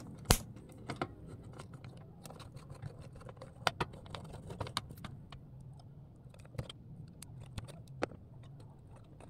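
Scattered light clicks and taps of a screwdriver and hands working on a small transformer and its mounting screw inside a plastic turntable case, one sharper click just after the start.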